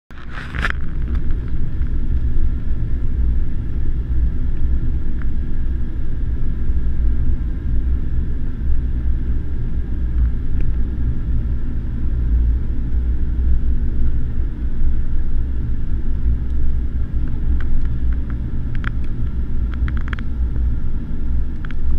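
Steady low rumble of a jet airliner's cabin in flight on approach to landing: engine and airflow noise heard from a window seat. A short burst of noise right at the start and a few faint ticks near the end.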